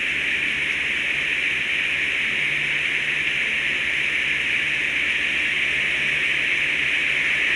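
Heavy rain falling steadily in a thunderstorm, an even hiss with no thunder claps.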